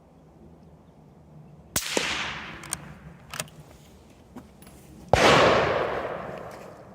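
Two suppressed .22 Magnum rifle shots about three and a half seconds apart, the second louder, each a sharp crack followed by a long fading rumble.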